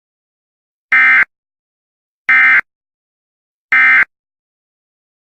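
Emergency Alert System end-of-message code: three identical short bursts of digital data screech, each about a third of a second long, separated by about a second of silence, marking the close of the alert.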